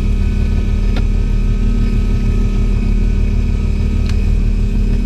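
Fishing boat's engine running steadily with an even hum, and two faint clicks, one about a second in and one about four seconds in.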